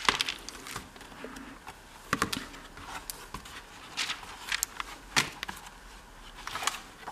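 Stiff pages of a stamp stockbook being turned and handled: scattered brief rustles and taps, a second or two apart.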